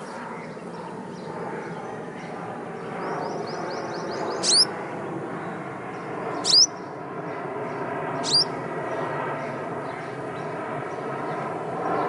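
Olive-backed sunbird calling: a quick run of short high chips, then three sharp, upward-sweeping calls about two seconds apart, over a steady low background rumble.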